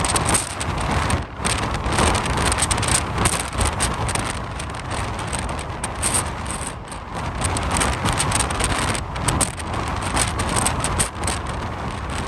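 Antonov An-225's six turbofan engines at takeoff power as the aircraft rolls away, heard from behind as a steady deep roar with a hiss on top, with gusts of jet blast buffeting the microphone.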